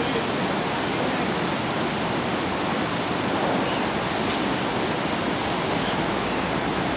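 Steady, even rushing noise with no breaks.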